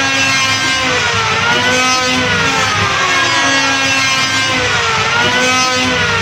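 Electric hand planer's motor whining loudly, its pitch falling and then rising again about every two seconds.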